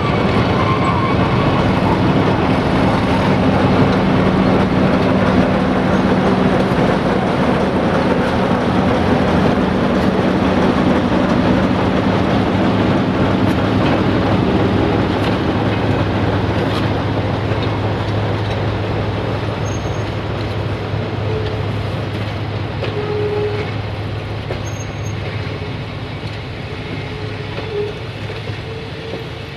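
Diesel engine of a 060-DA1 (LDE2100) diesel-electric locomotive running steadily during shunting, with a deep, even hum. It grows gradually fainter over the last third.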